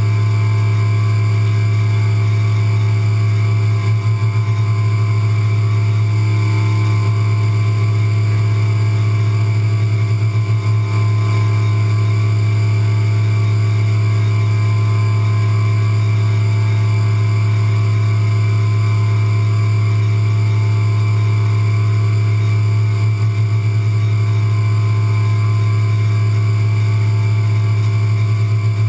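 CNC milling machine running steadily with coolant spraying as it machines a logo into the top of a metal oil/air vapor separator part: a strong, even low hum with steady whining tones above it.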